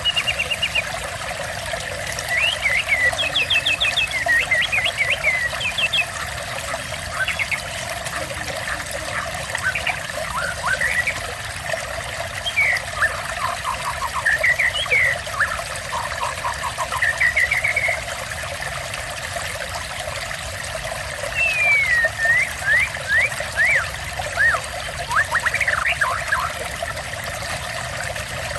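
Steady trickling water with a songbird singing over it in short chirps, rapid trills and quick rising and falling whistled notes.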